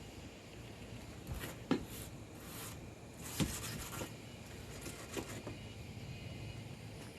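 A few scattered light knocks and short scrapes of hands-on work on a camper's slide-out floor, the sharpest knock about three and a half seconds in.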